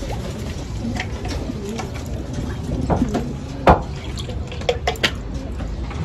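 Domestic pigeons cooing low in a loft, with a few clicks and one sharp knock a little past halfway.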